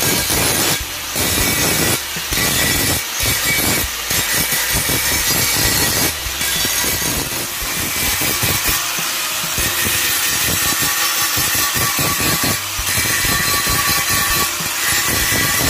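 Handheld electric angle grinder with an abrasive disc grinding rust off a rusty shovel blade: a harsh grinding hiss over a steady motor whine. The sound dips briefly several times, mostly in the first few seconds.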